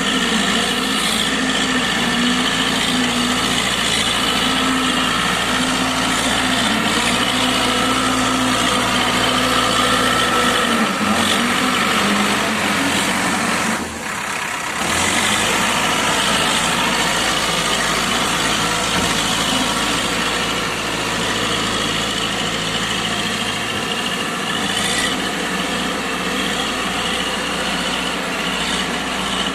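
Diesel engine of an old JCB 3D backhoe loader running steadily, with a short dip in level about halfway through.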